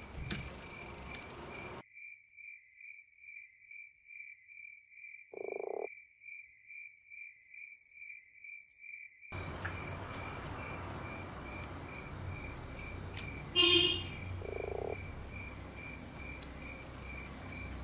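Steady, rhythmic high-pitched chirping, about two pulses a second, like a calling insect or frog. A short lower tone sounds about five seconds in, and a sharp click followed by another short tone comes near the fourteen-second mark.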